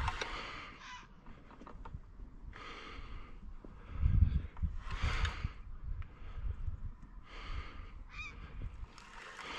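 Geese honking in a series of short calls, with a low rumble of handling or wind on the microphone about four seconds in.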